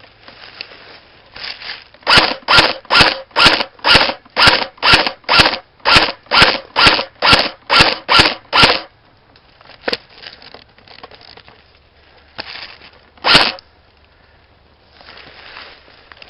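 Airsoft gun fired close by in a steady string of single shots, about two a second for some six seconds, then one more shot near the end.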